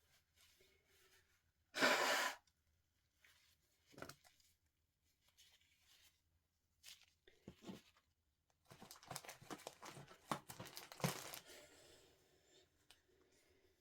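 A short, sharp burst of breath noise about two seconds in, of the kind the title warns of (sneezing and nose-blowing). Small scattered rustles follow, then a stretch of tissue or paper crinkling and rustling from about nine to twelve seconds.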